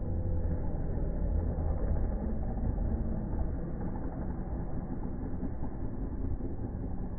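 Several motocross dirt bikes racing around the track, heard from the grandstand as a steady engine rumble whose engine notes rise and fall as the riders throttle on and off.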